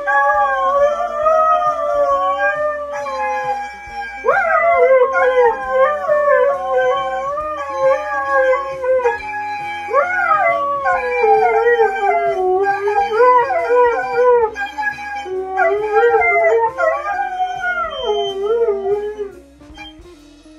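Two huskies howling together, long wavering howls that overlap. Fresh rounds start with a quick rise in pitch about four and ten seconds in, and the howling dies down near the end.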